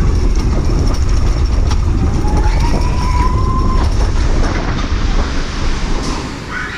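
Suspended roller coaster train running along its track with a heavy rumble of wheels, dying away about two-thirds of the way in.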